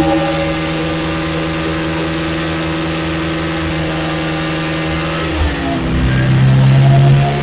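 Bajaj Pulsar NS125's single-cylinder engine running hard at high revs on a speed-test rig, with the bike at about 85 km/h. About five and a half seconds in, the engine note drops in pitch, then runs louder at the lower pitch.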